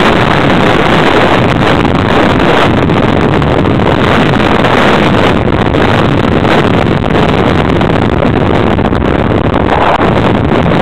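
Loud, continuous rough rumble of a racing vehicle heard from its on-board camera at speed, mixed with wind buffeting the microphone.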